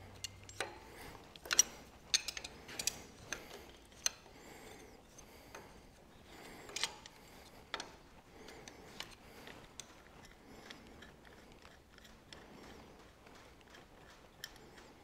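Hand work on small metal fittings: sharp metallic clicks and light scrapes as an engine's oil gauge and its line are undone and lifted away. The clicks are thickest in the first eight seconds, then fade to fainter ticking.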